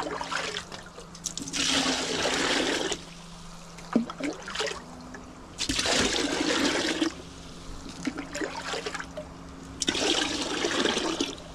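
Water gushing in three bursts of a second or so each, about four seconds apart, with light splashing between them over a steady low hum.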